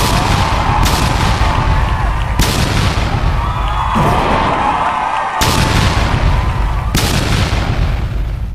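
Aerial fireworks shells bursting overhead in a loud, continuous barrage, with a sharp bang every second or two. Whistles fall in pitch between them, one longer falling whistle about four to five seconds in.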